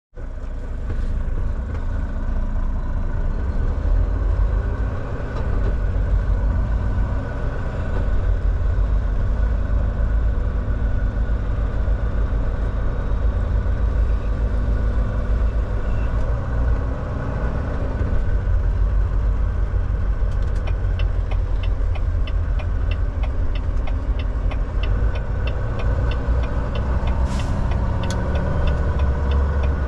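Semi truck's diesel engine and road noise heard from inside the cab, a steady low rumble. About two-thirds through, a regular ticking starts at roughly three ticks a second.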